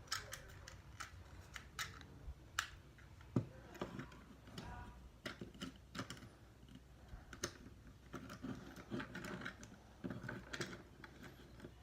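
Plastic parts of a Transformers Studio Series Ratchet figure clicking and rattling as they are moved and snapped into place by hand during transformation. The sound is a scattered run of small clicks and knocks, with a sharper click about two and a half seconds in.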